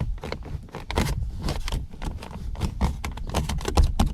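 Interior door handle of a new Lada Vesta being pulled and worked repeatedly by hand, its plastic trim giving quick, irregular clicks and knocks with dull thuds.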